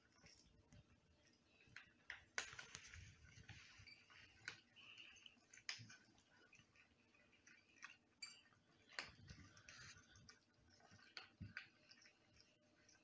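Faint, irregular crunching and clicking of several cats chewing food from their bowls, with a few sharper clicks scattered through.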